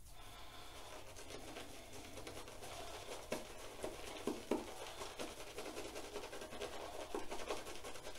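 Soft, scratchy swishing of a lathered shaving brush rubbed back and forth over a wet beard and neck, face-lathering the soap, starting about a second in with a few light clicks.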